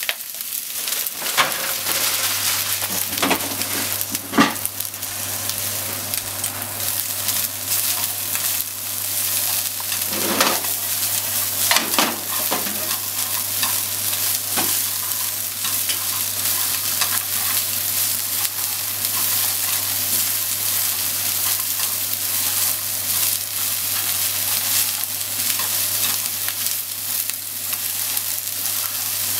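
Bean sprouts, cabbage, carrot and ham sizzling in a hot frying pan while being stirred and tossed with wooden cooking chopsticks: a steady sizzle, with scattered scrapes and clicks of the chopsticks against the pan in the first dozen seconds or so.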